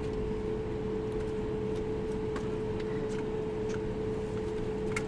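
Airliner cabin ambience after landing: the steady hum of the aircraft, with one constant tone over a low rumble, and a few faint clicks and knocks.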